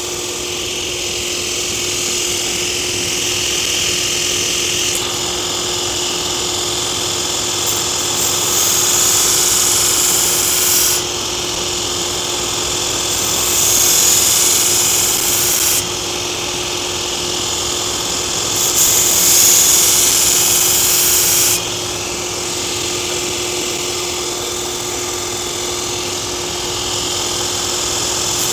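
Belt grinder running with a steady hum while the steel blade of a Takeda nakiri is pressed to the abrasive belt to thin it. Three grinding passes of a few seconds each, the first about five seconds in, raise a loud, high hiss over the motor, easing between passes.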